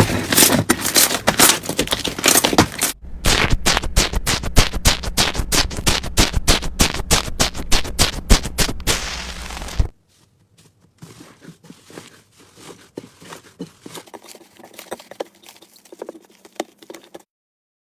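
Slime being worked by hand, giving rapid crackling and popping clicks. About ten seconds in it cuts abruptly to a much quieter clip of softer, scattered crackles.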